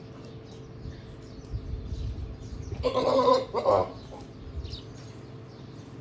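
A goat bleats once, a loud call in two parts about three seconds in.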